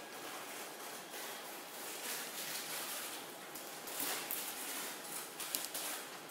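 A German Shepherd's claws clicking and paws scuffing on a tiled floor as it moves about, scattered soft clicks over a steady background hiss, a few sharper clicks about four and five and a half seconds in.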